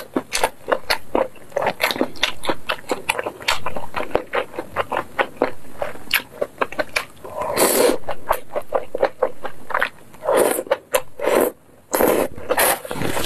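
Close-miked chewing of malatang: wet, smacking mouth clicks in quick succession as noodles, greens and meatballs are eaten. A longer noodle slurp comes about eight seconds in, with shorter slurps near the end.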